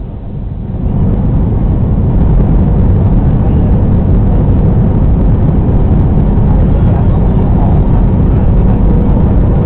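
Steady cabin noise inside an Airbus A321-211 airliner: a loud, low rumble of its CFM56 jet engines and the airflow around the fuselage. It rises over the first second and then holds level.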